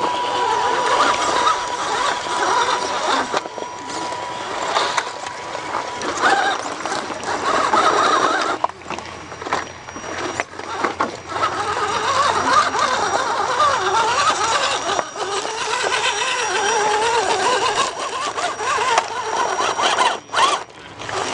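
Electric RC rock crawler's motor and drivetrain whining, the pitch wavering up and down with the throttle as it works over rock. There are brief drops about nine seconds in and near the end.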